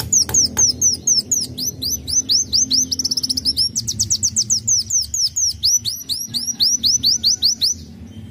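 Sunbird singing a long, fast run of high, sweeping whistled notes, several a second, briefly quickening into a rattle a little past the middle and stopping shortly before the end.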